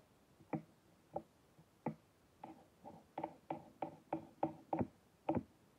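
Kitchen knife chopping an apple on a cutting board: a few separate knocks of the blade on the board, then a quicker run of about three chops a second.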